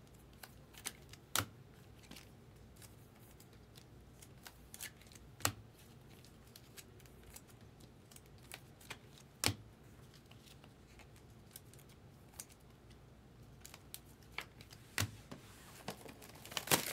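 Topps Chrome trading cards being handled and flipped one by one: scattered soft clicks and snaps of stiff glossy card stock, with a few sharper taps as cards are set down. Near the end a crinkling starts as the next foil pack is picked up.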